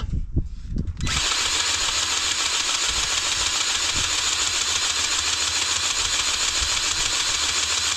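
Cordless grease gun's motor running steadily for about seven seconds, pumping corn head grease into a corn head row-unit gearbox to fill it, then cutting off suddenly. A few knocks in the first second.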